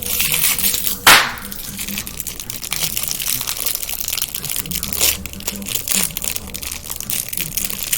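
Plastic wrapper crinkling and crackling as a small fidget toy's packaging is handled and opened, with a loud sharp crack or rip about a second in.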